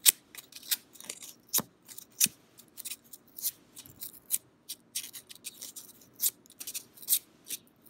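Sandpaper scratching against the steel blade of a Swedish frameback straight razor in short, irregular hand strokes, worked into the corner by the heel and spine.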